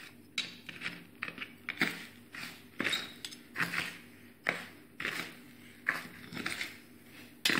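Steel spoon scraping and clinking against a stainless steel plate as it stirs coarse sugar, salt and chili powder together, in repeated strokes about two a second.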